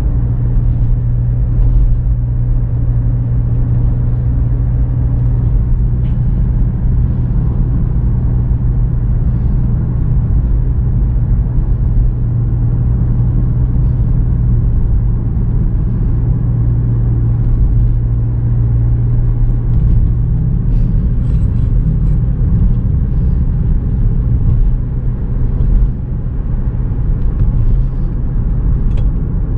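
2017 GMC Terrain engine breathing through a K&N cold air intake and a Flowmaster Delta series exhaust, heard inside the cabin from the driver's seat: a steady, loud low drone.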